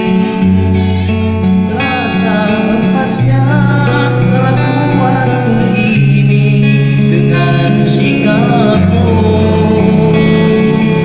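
Music: a song with a singing voice over guitar and a sustained bass line that changes note every few seconds.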